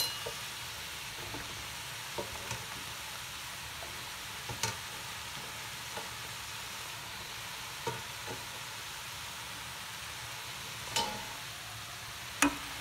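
Vegetables and freshly added sliced mushrooms sizzling steadily in a hot frying pan, with scattered light clicks and knocks, and a louder knock near the end as a spatula stirs them.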